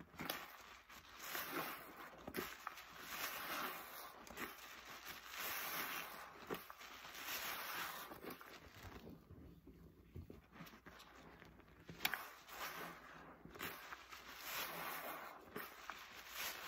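A soapy, paste-loaded sponge squeezed and kneaded by rubber-gloved hands in a basin of suds: irregular wet squelching and fizzing foam, with a lull a little past the middle and a sharp click soon after.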